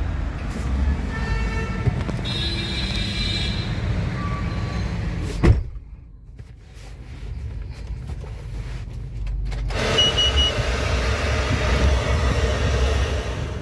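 Car engine idling with a steady low rumble. About five and a half seconds in there is a single sharp thump, after which the sound is quieter for a few seconds. From about ten seconds in, a steady rushing noise joins the rumble.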